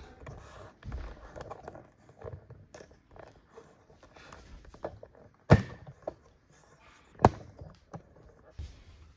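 Handling noise from assembling a wooden bed: scattered light clicks and knocks of parts being moved and fitted, with two loud sharp knocks a little under two seconds apart, about halfway and three-quarters of the way through.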